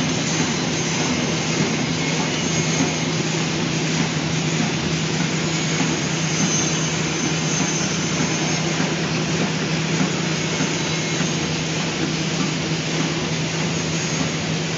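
Automatic flow-wrap packing machine for disposable cutlery sets running steadily: a constant mechanical whirr with a low hum underneath and no distinct strokes or pauses.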